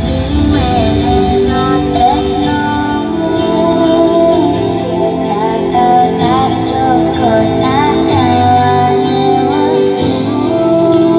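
Loud music with a female singing voice and a steady bass line, played through a large 'horeg' carnival sound system.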